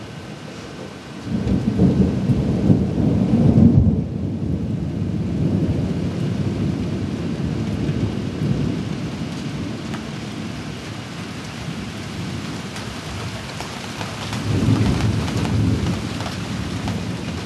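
Thunder rumbling over steady rain: a loud peal starts about a second in, stays strong for a few seconds and then rolls off slowly. A second, weaker swell of rumbling comes near the end.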